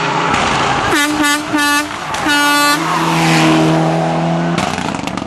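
Air horn blasting three short times and then once longer, followed by a lower, longer steady honk, over a rally car's engine running hard as it approaches and passes.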